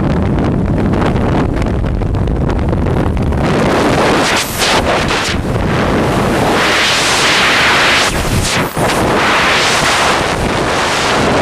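Wind buffeting the microphone, with stronger gusts of hiss about halfway through and again near the end.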